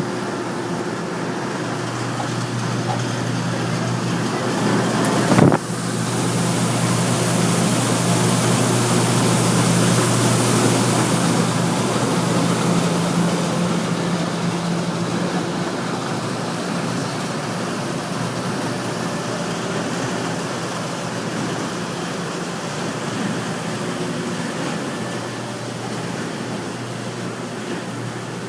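Potato washing machine running: a steady motor hum under a rushing noise. A sharp knock about five seconds in, then a high hiss comes up for several seconds and slowly fades.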